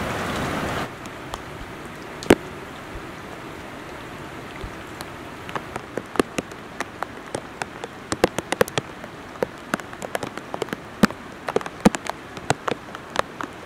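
Rain: a steady hiss of falling rain that drops away about a second in, leaving light rain with scattered single drops plopping, more and more often toward the end.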